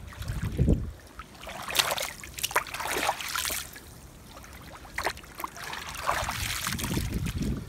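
Hands splashing and sloshing in a shallow stream over the trickle of running water, with the loudest bursts of splashing about two and three seconds in. Low rumbles come just at the start and again near the end.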